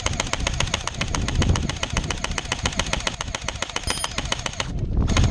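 EMG SGR12 electric airsoft shotgun firing full-auto in a long burst of rapid, evenly spaced shots. The firing stops briefly near the end, then starts again.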